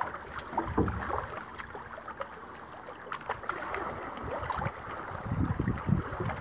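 Water lapping and splashing around a canoe as it is paddled, with scattered small clicks and a few low thumps.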